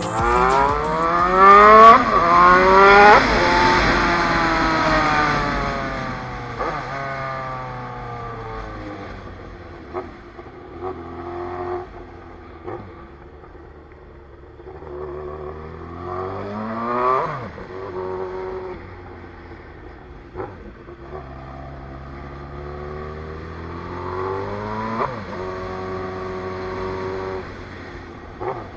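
Honda CBR954RR's inline-four engine revving hard through the gears in the first three seconds, with quick upshifts, then winding down as the bike slows. It pulls up through the revs again about 16 seconds in and once more near 24 seconds.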